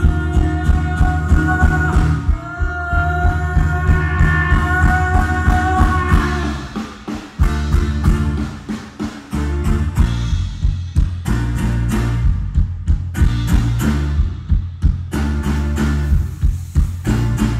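Live band music: acoustic guitar, bass and drum kit. For about the first six seconds a long held melody line runs over a heavy bass and a steady beat, then the music thins to sharper drum and percussion hits.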